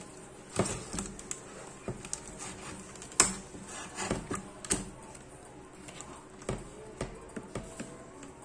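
Irregular clicks and taps of a tool and fingers working at the metal frame of a flat-panel monitor being taken apart, the loudest sharp click about three seconds in.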